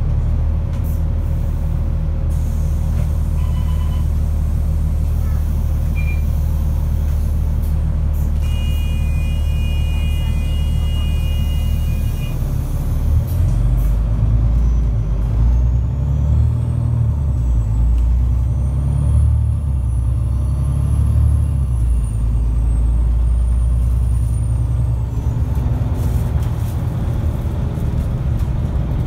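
Alexander Dennis Enviro500 MMC double-decker diesel bus heard from inside the passenger deck: a steady low engine hum, which turns into an uneven, rising and falling rumble about halfway through. A faint high whine rises and falls in the second half.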